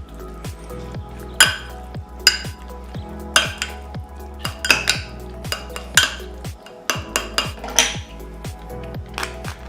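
A metal utensil clinking against a dish in irregular strikes, roughly one a second, as crab meat is mixed with mayonnaise and seasoning. Background music with a steady beat plays underneath.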